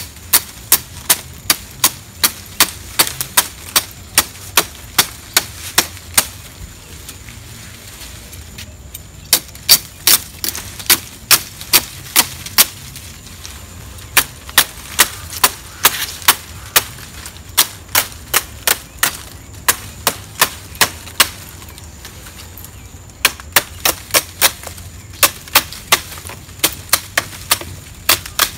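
Rapid, crisp chopping strokes of a blade cutting through palm leaves, about two or three a second, in runs broken by two short pauses.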